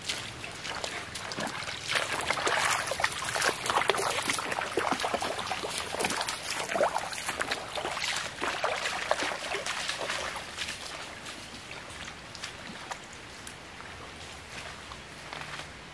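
Footsteps splashing through a shallow, rocky stream over a steady trickle of running water. The splashes are loudest in the first ten seconds or so, then fade as the walker moves away.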